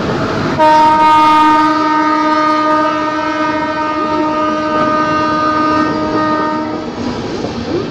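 Air horn of a passing Indian Railways WAP-7 electric locomotive, No. 39028, sounding one long steady blast of about six seconds, over the rushing noise of express coaches going by at speed. The horn starts under a second in and cuts off near the end, leaving only the coaches' rolling noise.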